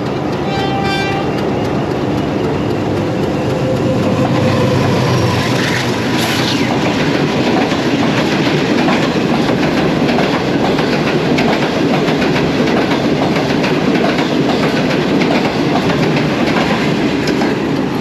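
Diesel-hauled passenger express running slowly through a station, wheels clacking steadily over the rail joints as the coaches pass, with heavy rain falling.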